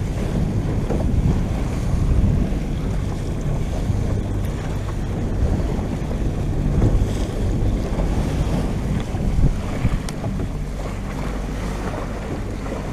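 Wind buffeting the microphone and sea water rushing and slapping along a small motorboat's hull in a rolling side-on swell, over the low, steady running of its Evinrude 150 hp outboard motor.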